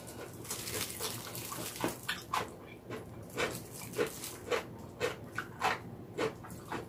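Close-miked chewing and mouth sounds from eating vegetable pancake (yachaejeon): short, wet smacks and clicks about twice a second.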